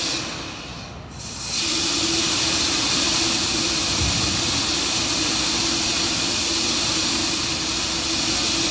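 Steady hissing with a constant low hum from the launch-pad audio of a rocket standing on the pad before liftoff. The hiss dips for about a second near the start.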